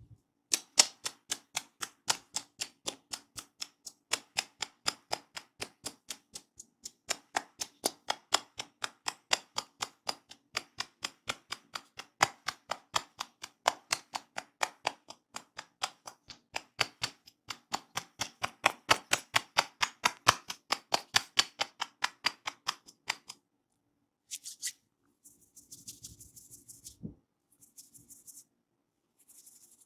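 Rapid, even hand tapping of a head massage: about four to five sharp slaps a second, with a couple of brief pauses, then it stops and a few soft scratchy rubbing noises follow.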